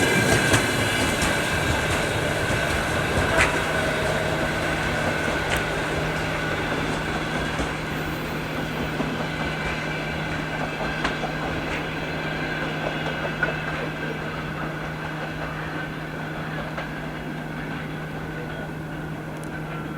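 Passenger train hauled by a TEP70 diesel locomotive rolling away under power: a steady low hum with a fainter, higher steady whine and occasional wheel clicks, fading gradually.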